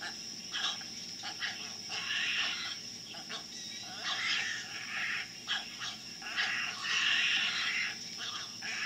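Commotion of a crowded flock of brown pelicans: irregular rustling, wing flaps and clacks from the jostling birds, over a steady high-pitched tone.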